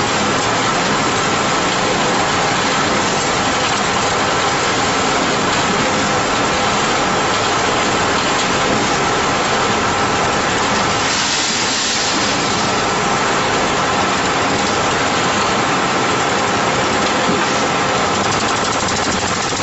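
JZC series drum concrete mixer running, a steady mechanical drone with constant tones. A brief louder hiss comes about halfway through.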